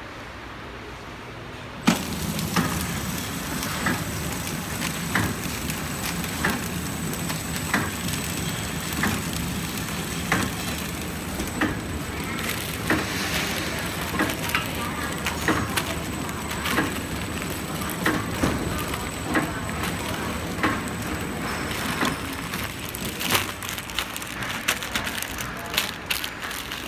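KT 350BD horizontal flow-wrap (pillow) packing machine running, its steady mechanical noise cutting in abruptly about two seconds in. A sharp click comes about every 1.3 seconds as each card pack is sealed and cut. Near the end, plastic film crinkles as the wrapped packs are handled.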